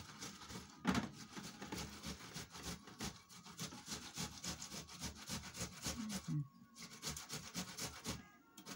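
Cut tomatoes being rubbed back and forth on a four-sided metal box grater, a fast run of rasping strokes with a short pause about six and a half seconds in. The tomato flesh is being grated to a pulp, leaving the skin behind.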